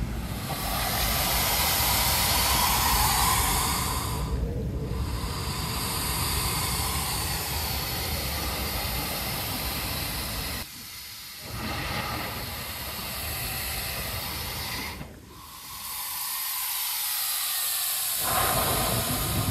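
Heavy ocean surf breaking over black lava rock: a steady rushing hiss of foam and spray over a deep rumble. The sound drops away abruptly twice, briefly about halfway through and for a few seconds near the end, before the rush returns.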